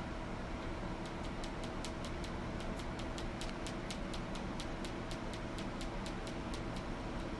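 Rapid, even light ticking, about five ticks a second, starting about a second in, over a steady room hum.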